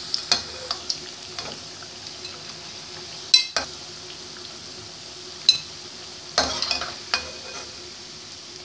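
Pakoras deep-frying in hot oil in a wok, a steady sizzle, with a metal spoon clinking and scraping against the pan as they are lifted out. The sharpest clink comes about three and a half seconds in, and a cluster of clinks follows between five and seven seconds.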